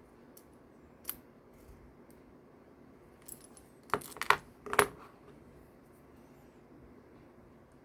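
Small metallic clicks from a 1:3-scale miniature Glock 17 model being worked by hand: one light click about a second in, then a quick cluster of sharp clicks and a small clatter between four and five seconds in, as the slide is racked and a tiny dummy round is ejected.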